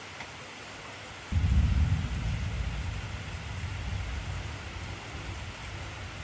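Heavy rain falling in a steady hiss. About a second in, a low thunder rumble breaks in suddenly and slowly dies away.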